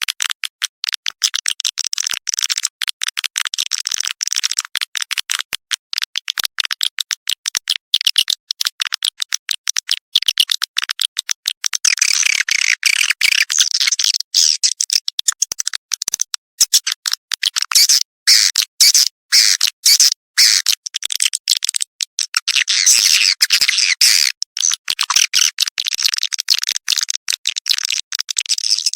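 Recorded swiftlet calls used as a courtship-call lure track: rapid, high-pitched twittering and chattering chirps in quick choppy pulses, growing busier and louder about 12 seconds in and again around 18 to 25 seconds.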